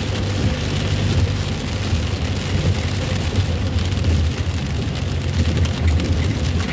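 Steady low drone of an ambulance's engine and tyres on a wet road, heard from inside the cabin, with rain falling on the vehicle's roof and windows.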